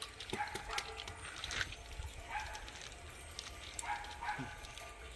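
Young puppies whining faintly, a few short high calls spread over several seconds.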